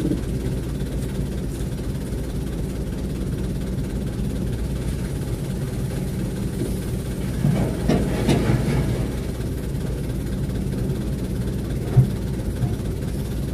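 Diesel truck engine idling steadily, heard from inside a truck's cab. The sound swells briefly about halfway through, and there is a single knock near the end.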